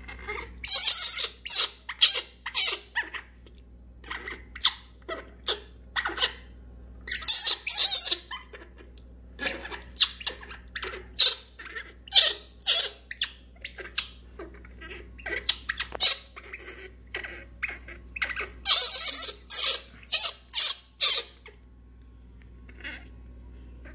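Baby macaque crying in many short, high-pitched screeching squeals, distressed and afraid of being bathed in water. The cries stop about three seconds before the end.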